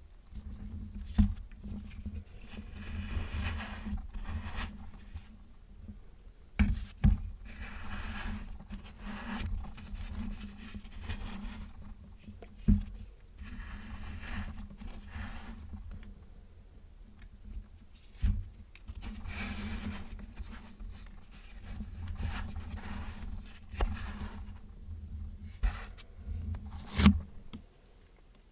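Kinetic sand being cut and scraped with a metal tool: stretches of soft, gritty scraping broken by several sharp taps, the loudest near the end.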